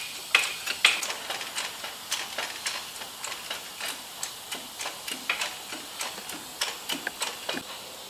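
Sharp, irregular clicks and ticks, two or three a second, loudest in the first second and growing fainter, as a Porta Power hydraulic ram with a rubber end is pumped up against the underside of a car's dented steel roof panel.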